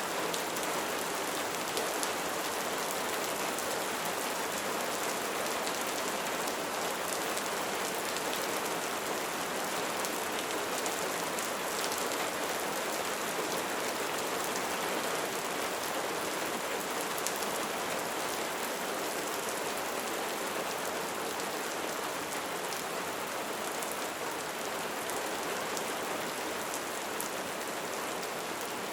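Light rain falling steadily, a continuous even hiss with many fine patters of individual raindrops striking a surface.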